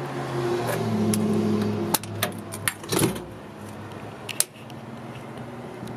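Lower steel tailgate of a 1988 Toyota Land Cruiser HJ61 being unlatched and let down: a string of metallic clicks and clunks from the latch and support stays, the sharpest about three and four and a half seconds in. A low steady hum stops about two seconds in.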